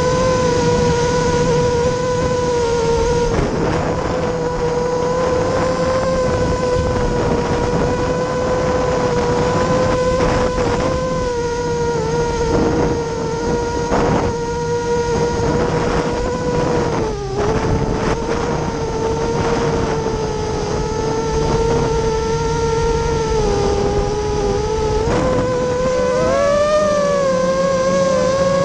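ImmersionRC Vortex 250 Pro FPV quadcopter's brushless motors and propellers whining steadily in flight, heard from its onboard camera, with a rush of air. The pitch dips sharply about two-thirds of the way through, sags again a little later, and climbs near the end as the throttle changes.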